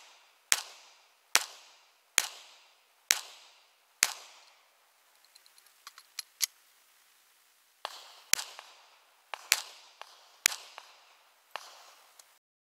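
Semi-automatic pistol fired in a steady string, about five shots under a second apart, each with a short ringing echo. Then a few light clicks of a reload, and a second string of about five shots.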